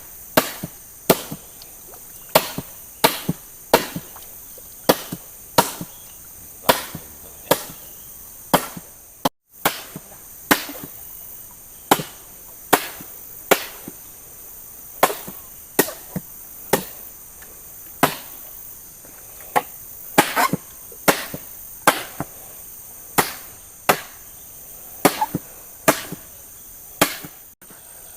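Wood being chopped by hand with a bladed tool: sharp chops about one and a half a second, over a steady high-pitched background hiss.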